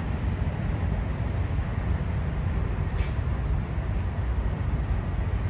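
Steady low rumble of idling diesel tractor-trailers and surrounding traffic, with one brief high hiss about three seconds in.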